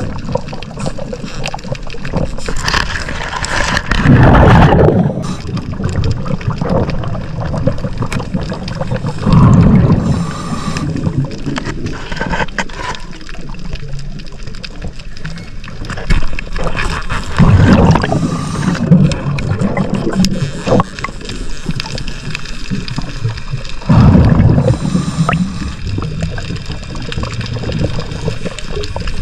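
Underwater gurgling, with a diver's exhaled bubbles rushing up in four loud, rumbling bursts several seconds apart.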